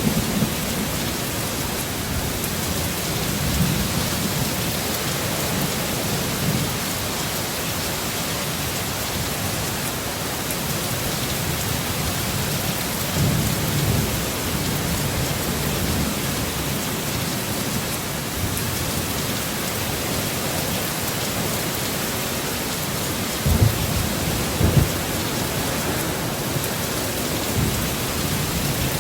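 Heavy steady rain with low rumbles of thunder, swelling about halfway through, and two short low thumps about three-quarters of the way through.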